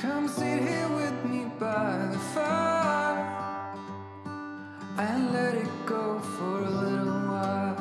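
Background music: strummed acoustic guitar with a melody line over it in two phrases, the second starting about five seconds in.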